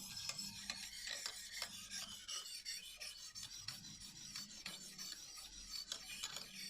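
Kitchen knife edge being drawn over an oiled 600-grit Lansky sharpening hone: a rapid series of light scraping strokes, one after another.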